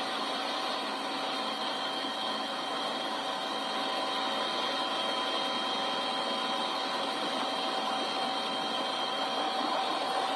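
A steady mechanical drone with constant high whining tones, an engine or motor running evenly.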